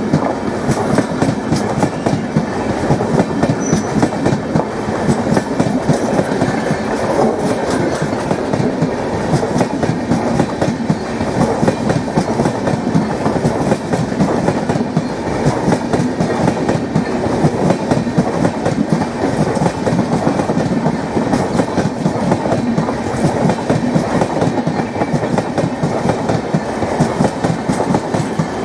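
Passenger coaches of an express train rolling past close by: a steady loud rumble with the wheels' rapid clickety-clack over the rail joints.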